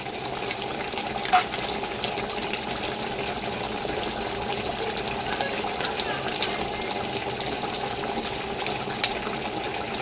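Chicken karahi cooking in ghee in a large pot, bubbling and sizzling steadily as cream is poured in, with a single sharp click about a second and a half in.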